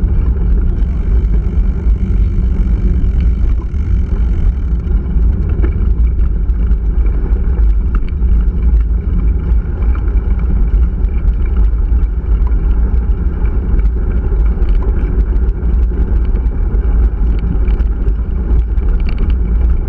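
Steady low rumble of wind buffeting a handlebar-mounted camera's microphone as a mountain bike rolls over a gravel road, with scattered small clicks and rattles from the tyres and bike.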